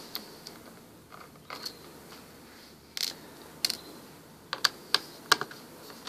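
About a dozen light, irregular clicks and taps of a small screwdriver and tiny screws as screws are taken out of a Toshiba P50 laptop's plastic bottom cover.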